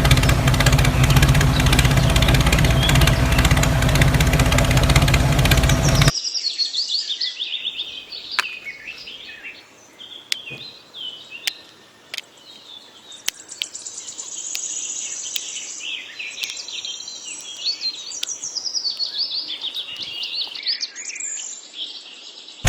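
A loud, steady motor noise cuts off suddenly about six seconds in. After that, birds chirp over and over, with a few sharp clicks among them.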